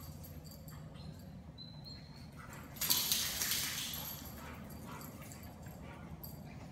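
A dog gives a single loud, sharp call about three seconds in; it trails off over about a second in the large echoing room. A faint high whine comes before it.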